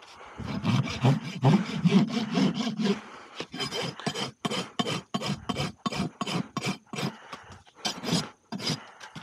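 Farrier's hoof rasp filing a horse's hoof in quick repeated back-and-forth strokes, about three a second. The strokes are heavier and deeper for the first three seconds, then lighter.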